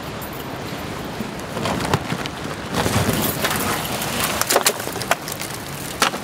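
Dry driftwood sticks clattering and cracking onto a rock floor as a backpack-load of firewood is tipped out: a run of sharp knocks and snaps through the middle, and another knock near the end.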